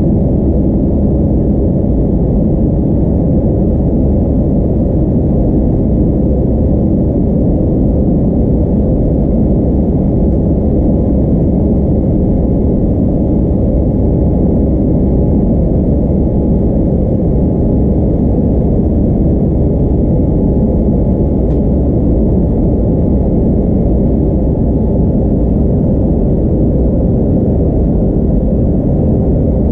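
Steady cabin noise of an Airbus A320neo climbing out after takeoff, heard from a window seat beside its Pratt & Whitney PW1100G geared turbofan. A deep, even noise with a faint steady whine above it.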